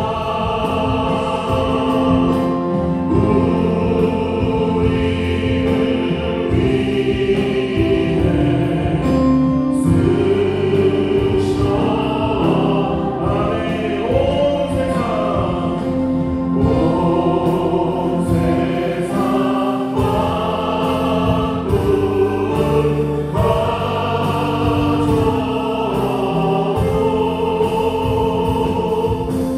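A church praise team sings a worship song together, accompanied by a Yamaha Montage 8 keyboard, bass guitar and drums, in a steady flowing gospel style.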